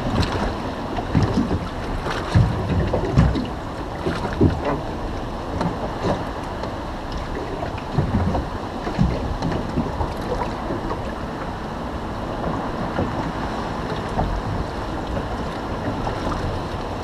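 Wind buffeting the microphone and waves slapping against the hull of a small fishing boat at sea, with irregular low thumps that are heaviest a few seconds in.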